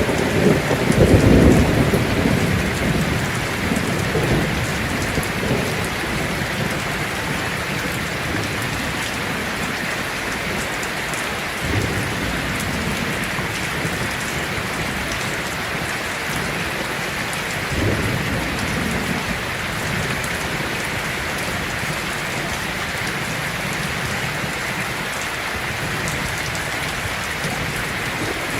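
Heavy rain falling steadily on a tin roof. A rumble of thunder at the start dies away over the first few seconds, and two shorter low rumbles come about twelve and eighteen seconds in.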